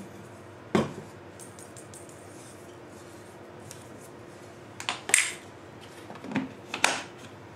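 A spoon knocks once against a meal-prep container about a second in. After a quiet stretch come a few short clatters and clicks near the end as a plastic jar of chia seeds is handled and its lid put back on.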